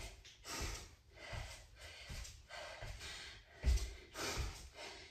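A woman breathing hard and fast in short puffs, about two breaths a second, while doing mountain climbers, with a few soft low thuds of her feet on the exercise mat near the end.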